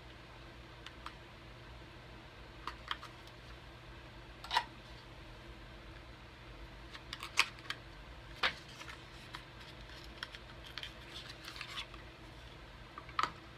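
Small cosmetics packaging being opened and handled: scattered light clicks, taps and rustles of a lipstick box and tube, with a few sharper clicks, over a low steady room hum.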